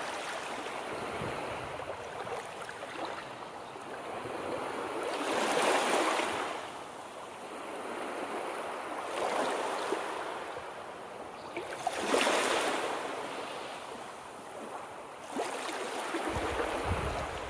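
River waves washing onto the shore, the noise swelling and falling back every three to four seconds. Near the end, wind starts buffeting the microphone with a low rumble.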